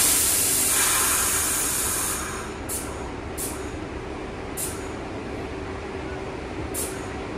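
Air brakes of an R62/R62A subway train venting: a loud hiss that fades over about two seconds, followed by four short puffs of air spaced a second or two apart.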